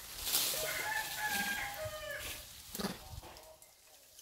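A rooster crowing once: one drawn-out, pitched call in a few connected segments in the first half, followed by a short rustle or knock.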